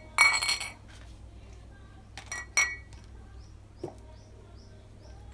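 Washed plates and bowls clinking as they are put away on a shelf. A loud clatter with ringing comes near the start, then two sharp clinks a little past two seconds and a lighter knock near four seconds.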